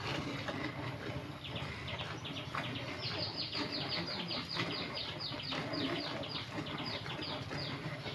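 Milk squirting in quick hand-milking strokes from a cow's teats into a bucket of foamy milk, about four squirts a second in an even rhythm that gets stronger about three seconds in.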